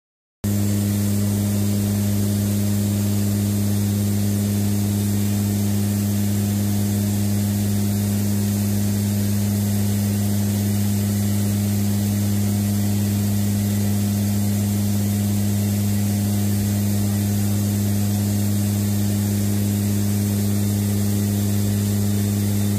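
Cabin noise of a WC-130J Hercules in flight: the steady drone of its turboprop engines and propellers, a loud low hum with two strong deep tones under a hiss of airflow. It cuts in just under half a second in, after a brief silence.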